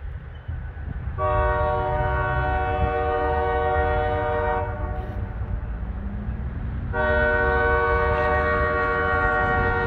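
Diesel locomotive air horn sounding two long blasts: the first starts about a second in and holds for some three and a half seconds, the second starts about two seconds later and is still sounding at the end. These are the opening long blasts of the horn signal for a road crossing, heard over a low rumble.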